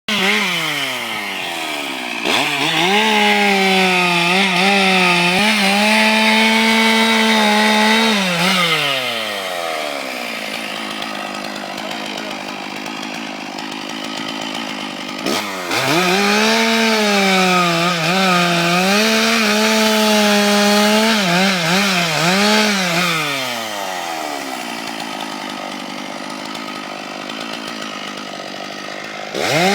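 Chainsaw cutting a coconut palm trunk: it revs up hard twice for several seconds each time, its pitch wavering as the chain bites, and drops back to idle in between before revving up again near the end.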